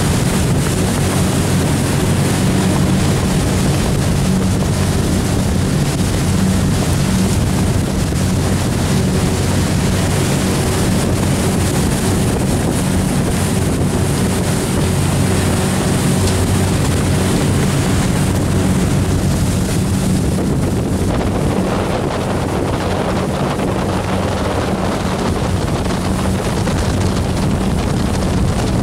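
Hydrofoil boat's engine running with a steady low drone, under the rush of the wake water and wind buffeting the microphone.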